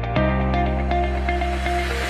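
Electronic background music: a held bass note under short repeating synth notes, with a rising noise sweep building near the end.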